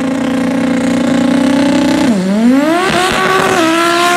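Volvo 242 drag car's engine held at high revs during a burnout, with the rear tyres spinning and smoking. About two seconds in the revs dip sharply, then climb again and hold higher.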